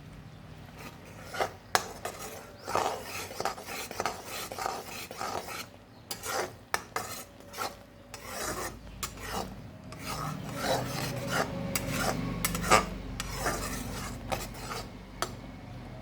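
A ladle scraping and stirring around a pan of thickening jaggery syrup, in repeated uneven strokes. The syrup is being cooked down until it gathers into a soft lump for peanut chikki.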